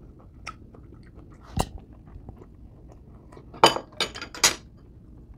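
Quiet close-up chewing of a mouthful of crunchy stir-fried bamboo shoots. There is a single click about a second and a half in, and near the end a quick run of four or five sharp clinks of a metal fork against the plate.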